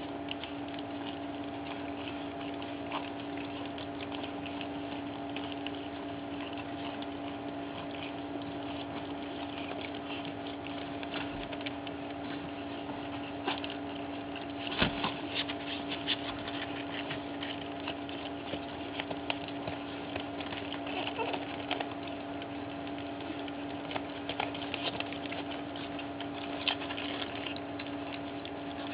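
Pug puppies lapping and smacking at weaning food in a bowl: many small, irregular wet clicks, busier around the middle, with a sharper click about halfway through. A steady hum runs underneath.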